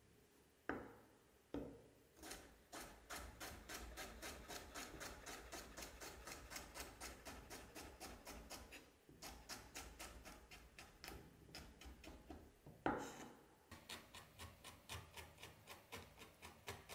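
Chef's knife chopping vegetable strips on a wooden cutting board: a few single knocks at first, then a quick, regular run of chops several a second. The chopping breaks briefly about nine seconds in, with a heavier knock about thirteen seconds in before the chopping resumes.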